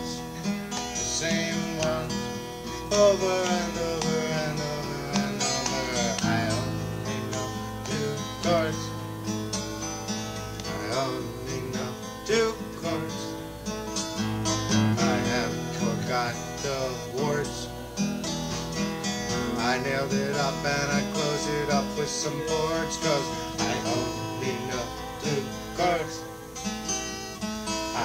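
Acoustic guitar music, with strummed chords and picked, bending melody notes.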